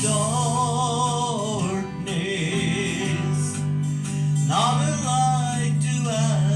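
Gospel song: a voice singing long, wavering held notes over strummed acoustic guitar, with a short instrumental gap in the middle.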